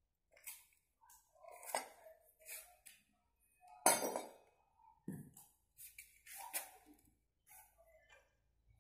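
Scattered clinks and clatters of metal tools and parts being picked up and set down, with the loudest knock about four seconds in.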